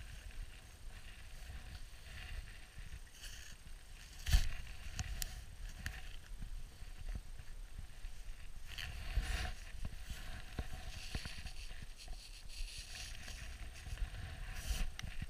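Low rumble of wind and handling on a body-worn action camera's microphone, with rustling of gloves, jacket and snow in several bursts as a caught perch is handled. A sharp knock sounds about four seconds in.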